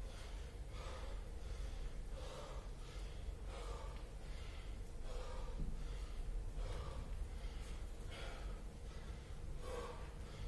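A man breathing hard from exertion during Cossack squats, one loud breath about every second and a half. A low steady hum runs underneath.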